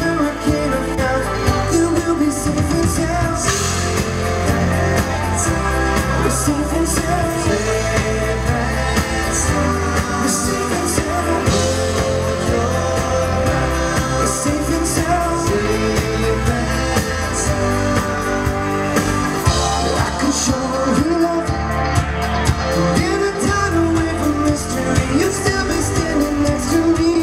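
Live rock band playing a song: electric guitars, bass and drums under a male lead vocal.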